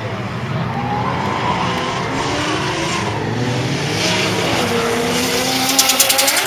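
LS1 V8 engine of a drifting Nissan Skyline R31, revving up and down as the car slides, with tyres squealing. Near the end a rapid string of sharp crackles comes as another car passes close by.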